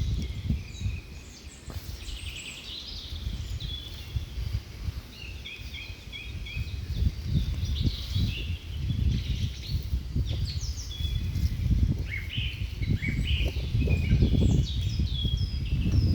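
Birds chirping and twittering in many short, overlapping calls, over an uneven low rumble.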